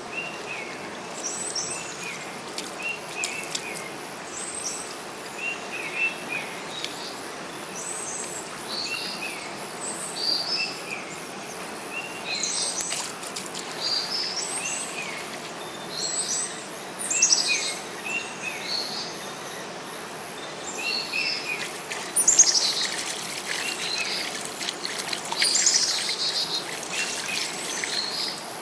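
Wild birds singing and calling, with short chirping notes repeating every second or two over a steady background hiss.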